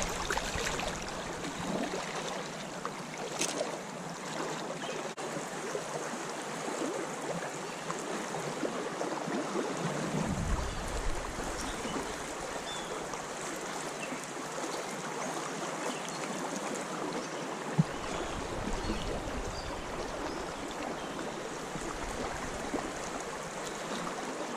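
Creek water running steadily, with a low bump about ten seconds in and a sharp knock near the end.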